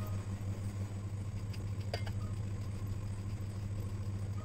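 A steady low electrical hum, with faint scrapes of fingers mixing dry semolina and spice powders on a steel plate.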